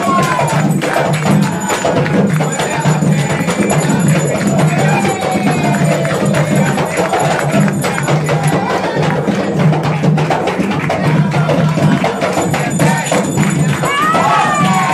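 Afro-Brazilian ritual music: atabaque hand drums beating a steady rhythm, a group clapping along, and voices singing a ponto, an Umbanda sacred chant.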